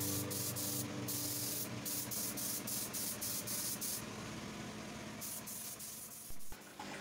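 Compressed-air gravity-feed paint spray gun spraying yellow paint, a hiss that starts and stops many times as the trigger is pulled and released.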